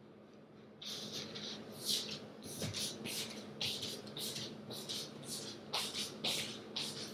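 A Chihuahua–toy poodle mix eating dry dog food: repeated short crunches at irregular spacing, starting about a second in.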